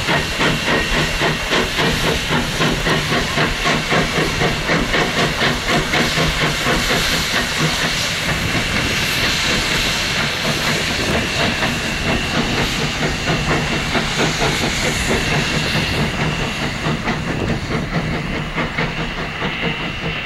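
Virginia & Truckee #29, a 2-8-0 steam locomotive, working away under load: quick, regular exhaust chuffs over a loud steam hiss. About halfway through, the beats blur into a steadier rush.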